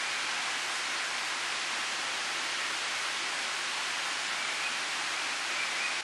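Steady, even rush of running water, like a forest stream or waterfall.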